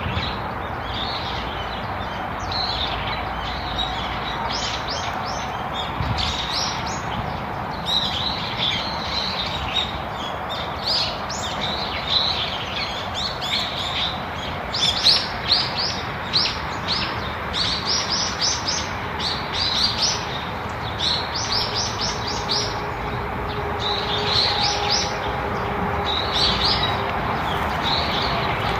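Small songbirds chirping in quick, high, repeated clusters of short notes over a steady background hiss.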